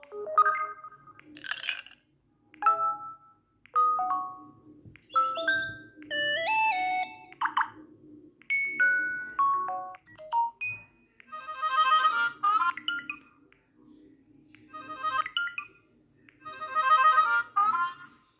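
LG Bello phone notification tones played one after another: about a dozen short electronic chimes and jingles, some single notes and some quick stepping melodies, each separated by a brief pause.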